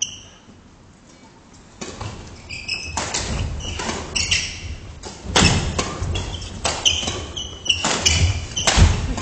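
Badminton doubles rally: sharp racket strikes on the shuttlecock, sneakers squeaking briefly on the wooden gym floor, and thudding footfalls, starting about two seconds in and getting busier. The sounds echo around the large hall.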